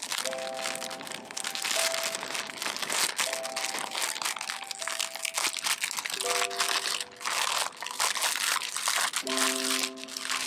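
Thin clear plastic packaging sleeve crinkling as a fabric planner cover is handled and slid out of it. Soft background music of held chords plays under it.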